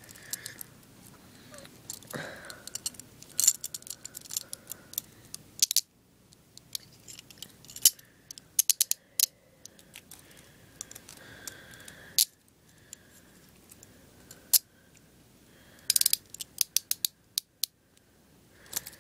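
Steel hinged handcuffs being handled: several quick runs of ratchet clicks as the cuffs are worked, with single metal knocks in between.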